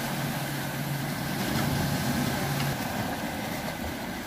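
A steady low engine hum that cuts out about two and a half seconds in, over a continuous rushing noise.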